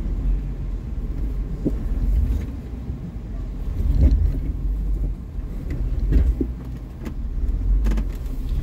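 Jeep Wrangler engine running with a steady low rumble, heard from inside the cab as it crawls over rough off-road ground, with a few short knocks from the vehicle working over the terrain.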